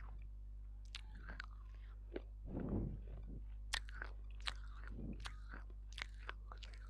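Close-miked mouth sounds of chewing and swallowing: scattered sharp, crunchy clicks and several low, soft gulps spaced a couple of seconds apart.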